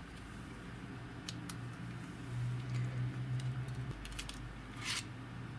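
Hands handling a Sony DCR-PC100E camcorder's plastic body: a few light clicks and a short scraping rustle near the end, over a low steady hum.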